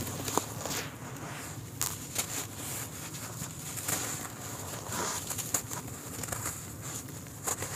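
Hands crumbling lumps of dry clay soil, the dry dirt crackling and trickling as it falls, with several sharper crunches along the way.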